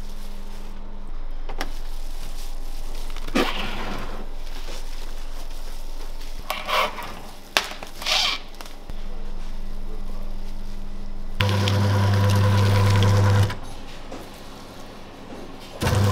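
Butcher-shop work sounds: plastic cling film pulled and torn across a stainless wrapping machine in short scratchy bursts, then an electric meat grinder's motor humming steadily for about two seconds, stopping, and starting again near the end.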